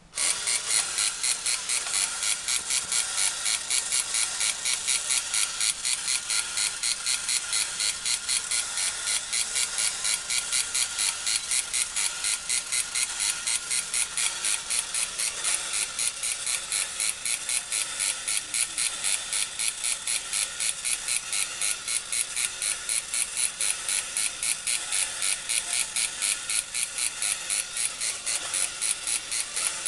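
Japanese battery-operated tin toy weightlifting dog switched on and running: its small electric motor and gears whir high-pitched with a rapid, even pulsing as the arms pump the barbell.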